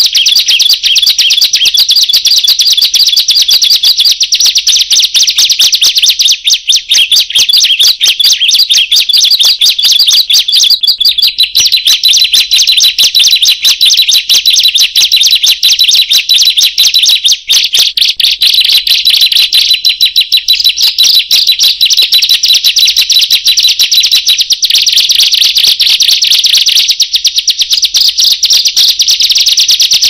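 Ciblek (bar-winged prinia) calling loudly: a rapid, unbroken stream of sharp high chirps, with a steadier whistled note joining in through the middle.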